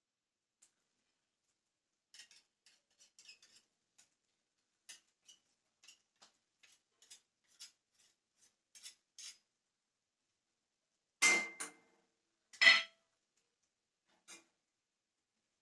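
Kitchen utensils being handled: a run of small clicks and taps, then two loud metallic clanks about eleven and twelve and a half seconds in, the first ringing briefly, and a softer knock near the end.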